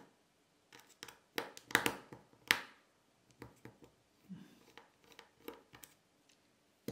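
Small screwdriver clicking and tapping on the tiny screws and metal bracket holding an iPhone 7's Taptic engine: a few louder clicks about one to two and a half seconds in, then lighter ticks, and a sharp click at the end.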